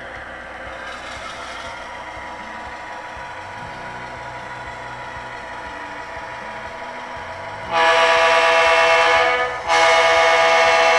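Model diesel locomotive sound decoder, a Soundtraxx Tsunami 2 in an SD7, running its diesel engine sound steadily. About eight seconds in, a loud multi-note horn chord blows, then breaks off briefly and blows again near the end.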